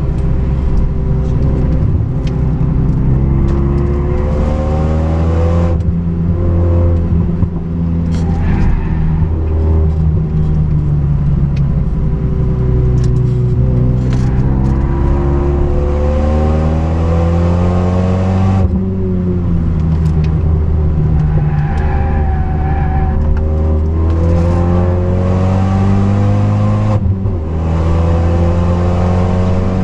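Renault Mégane 3 RS's 2.0-litre turbocharged four-cylinder engine under hard acceleration, heard inside the cabin. Its note climbs in pitch and drops back sharply three times, over steady road and wind noise.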